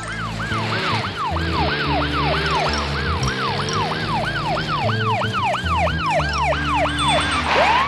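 Ambulance siren in a rapid wail, about three sweeps a second, each falling in pitch, over background music. One rising sweep comes near the end.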